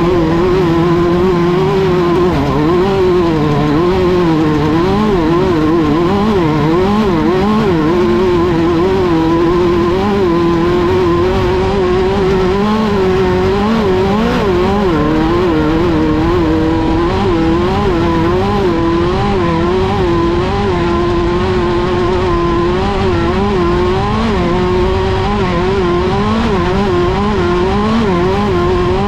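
1/2-1600 class desert race car's air-cooled 1600 cc Volkswagen engine running hard, its revs wavering up and down quickly and unevenly.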